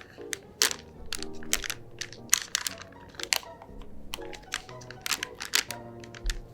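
Light background music with note changes, overlaid by many quick, irregular clicks and taps, several a second.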